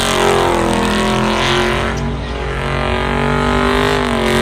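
Car engine held at high revs during a burnout, the drive tyres spinning in a cloud of smoke. The engine note is loud and steady, with a brief dip in pitch near the end.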